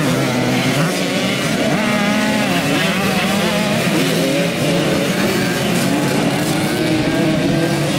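Several small youth motocross bikes riding past, their engines revving with many pitches rising and falling and overlapping one another.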